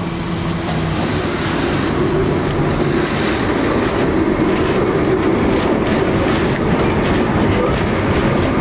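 Lisbon tram running on its rails, heard from on board: a steady rumble of wheels and motor, with a thin high wheel squeal in the first few seconds and clicks over the rail joints. The sound grows louder about four seconds in.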